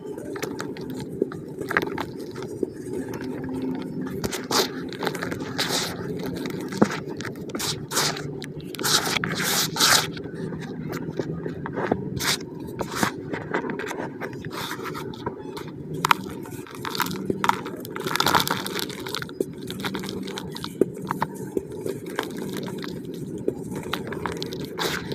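Hands crumbling and squeezing lumps of slightly damp pure cement and digging through the loose powder. It makes a run of irregular crisp crunches and scrapes over a soft steady rustle.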